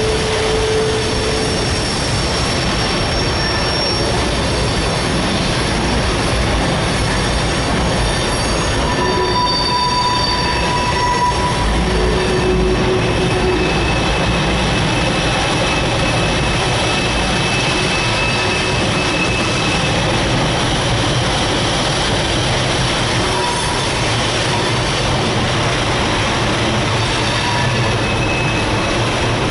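Freight cars rolling past on an elevated steel trestle: a steady rumble and rattle of wheels over the rails, with short, high wheel squeals coming and going.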